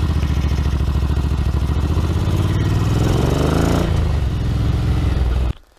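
Ducati 900SS bevel's air-cooled 90-degree V-twin running under way on the road. Its pitch rises for a little over a second, then drops sharply about four seconds in, as at a gear change, and runs steady until it cuts off suddenly near the end.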